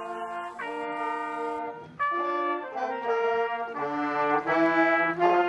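Youth wind band of trombones, saxophones, trumpet, clarinets and flute playing a melody in long held notes, louder from about two seconds in.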